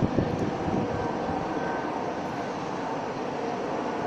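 A ship's engine running with a steady rumble, wind buffeting the microphone around the start.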